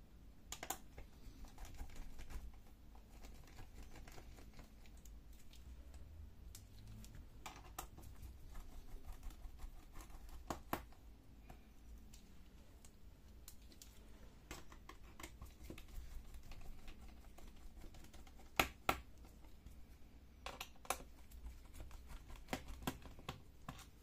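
Irregular light clicks and taps of a screwdriver and small screws on a laptop's metal bottom cover as the back-panel screws are undone, with a few sharper knocks in the second half.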